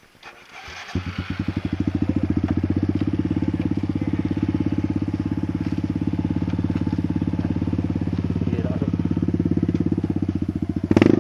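Kawasaki KLX dirt bike's single-cylinder four-stroke engine starting up about a second in, then idling steadily with an even beat. It rises briefly in revs near the end.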